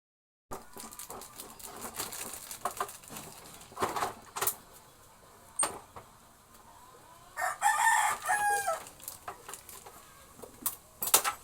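A bird's call, one long pitched call lasting about a second and a half, starting about seven seconds in, with scattered clicks and knocks around it.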